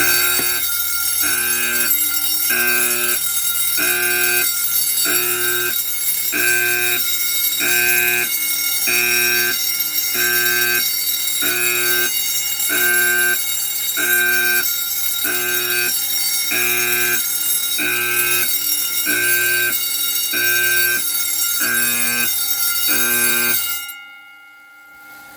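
Home fire alarm system in full alarm: an Edwards Adaptahorn, a Wheelock motorized bell and an Amseco burglar alarm bell sounding together, loud, with a pulsing pattern about once a second over continuous bell ringing. It all cuts off suddenly near the end as the alarm is silenced.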